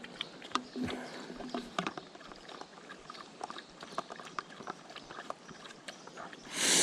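A dog lapping water, a run of quick irregular wet clicks. A short rushing hiss comes near the end.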